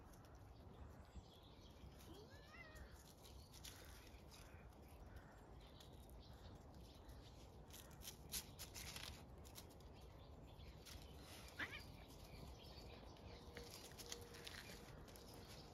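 Near silence outdoors: faint background hum with a short high chirp about two and a half seconds in and a few soft sharp clicks later on.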